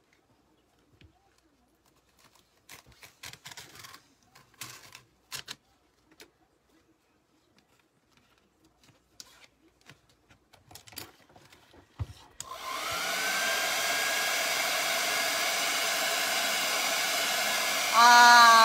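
Hand-held hair dryer switched on: its whine rises as the motor spins up, then it blows steadily over freshly applied chalk paste on a sign, briefly louder with a wavering pitch near the end. Before it starts there are only faint taps and handling clicks.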